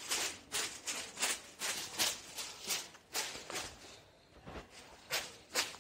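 Kite string swishing through the flyer's hand as he pulls it in with quick tugs, about two to three strokes a second, easing off about four seconds in before two more sharp tugs near the end.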